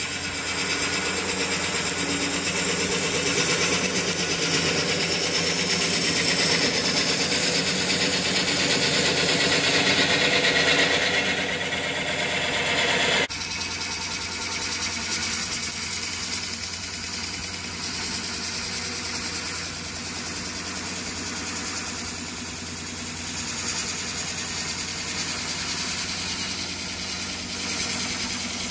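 Wood lathe running with a steady hum while a gouge cuts a spinning blank of fresh wet wood, a continuous hiss of shavings being peeled off. About halfway through, the cutting sound drops abruptly and carries on at a lower level.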